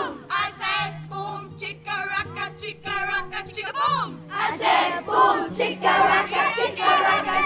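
A large group of children singing a song together, with instrumental backing that carries a steady bass note.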